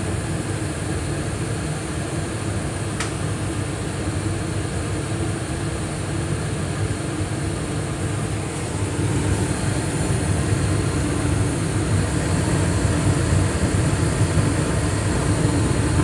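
Carrier Infinity 80 two-stage natural-gas furnace running on high-stage heat: the three burners' flames, the inducer on high speed and the ECM blower on high make a steady low rushing hum. A single faint click comes about three seconds in, and the sound grows a little louder about nine seconds in.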